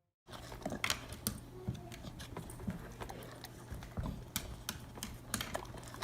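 Irregular light clicks and taps, several a second, over a low steady hum, starting abruptly just after a moment of silence.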